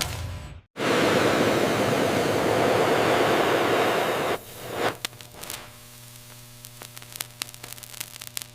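Factory machinery noise. A loud, steady rushing noise runs for about three and a half seconds and stops suddenly. It gives way to a quieter low machine hum with scattered sharp clicks and ticks.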